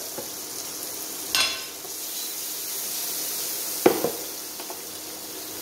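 King oyster mushroom slices sizzling steadily in melted vegan butter in a frying pan, with a brief scrape of a silicone spatula about a second in. Just before four seconds comes a sharp clack as the spatula is set down on a ceramic plate.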